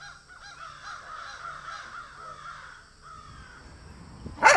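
Young honey badger calling: a rapid string of short, squeaky, crow-like cries, several a second, for about three seconds. One loud sharp knock comes near the end.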